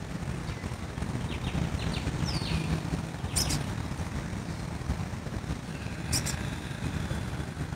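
Outdoor ambience: a steady low rumble of distant traffic, with a few short bird chirps, one of them a quick falling call about two seconds in.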